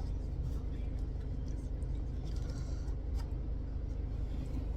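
Steady low rumble of a car heard from inside its cabin, engine running, with a few faint short clicks.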